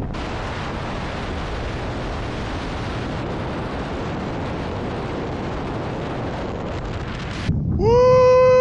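Freefall wind rushing over the camera microphone as a steady roar that cuts off suddenly near the end. Then comes a loud held pitched sound that falls off in pitch, twice.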